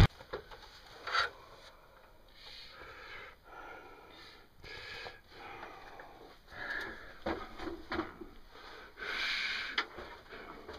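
Faint handling noise: intermittent soft rustling and rubbing with a few light clicks.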